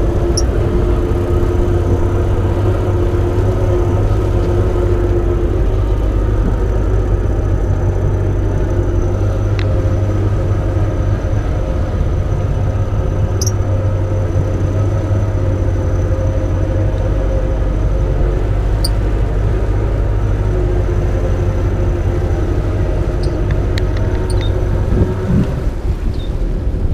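Boat motor running steadily under way, a continuous drone with a low rumble. Near the end the engine note briefly dips.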